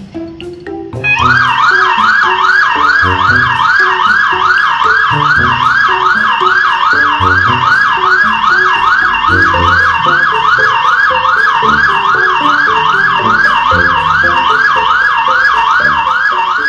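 Emergency siren yelping rapidly, its pitch sweeping up and down about two and a half times a second, starting about a second in, over background music.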